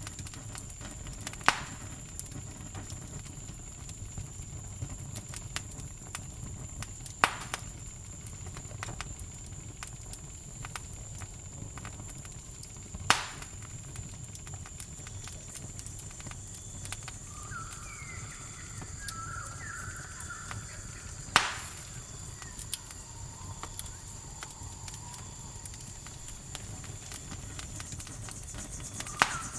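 Campfire burning with occasional sharp pops, five in all, over a steady high-pitched cricket chorus and a low rumble. Some short chirping calls come in about two-thirds of the way through.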